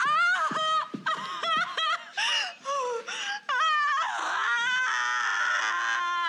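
A woman crying out in labour pains: a run of short, high cries, then a long strained wail through the last two seconds.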